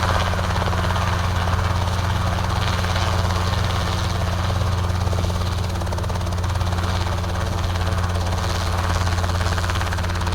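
Robinson R22 helicopter running steadily, heard from inside the cockpit: a constant low drone of engine and rotor as the helicopter hovers and sets down.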